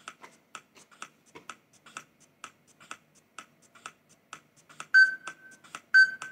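Workout interval timer ticking about twice a second, then two loud high beeps a second apart near the end. The beeps are a countdown to the start of a sprint interval.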